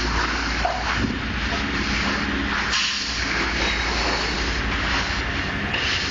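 A steady mechanical drone with a strong low hum and a hiss that swells and fades over it.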